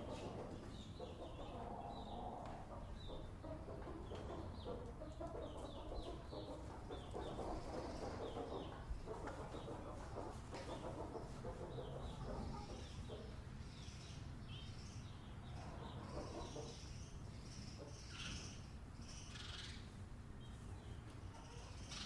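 Henhouse ambience: chickens clucking on and off, with many short high chirps over a steady low rumble.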